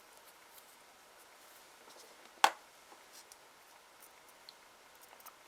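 Nail-stamping tools being handled: faint small clicks and light scrapes, with one sharp click about halfway through.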